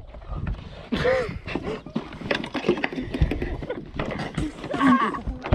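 People exclaiming wordlessly, briefly about a second in and again near the end, over irregular knocks and clatter.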